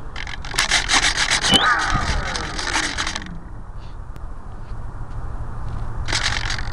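Rough scraping and rubbing on the plane-mounted camera's microphone for about three seconds, then a lower steady rumble. About six seconds in, the RC P-51 Mustang's Turnigy 50-55 brushless motor and 15x10 propeller start up with a dense, buzzy running sound.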